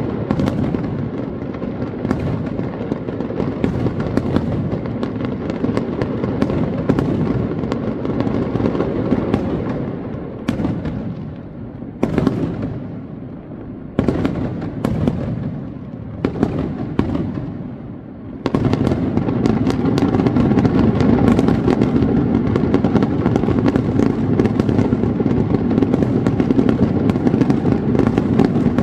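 Fireworks bursting in a rapid, continuous barrage, the bangs overlapping one another. The barrage thins to separate bangs through the middle, then comes back denser and louder about two-thirds of the way through.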